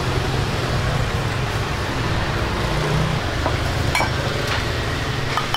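Steady low rumble of a busy pho kitchen, with a metal ladle clinking against the broth pot and bowls a couple of times near the end.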